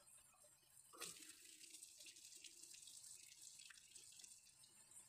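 Water running through a bathroom sink's chrome drain pipe and splashing out of its open lower end. It starts suddenly about a second in and runs as a faint, steady splash.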